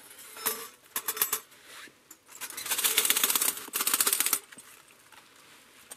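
Hot titanium twig stove rattling as it is shaken out over a steel fire ring: quick clattering clicks of its thin metal panels. There are a few short runs in the first second and a longer, dense rattle from about two to four and a half seconds in.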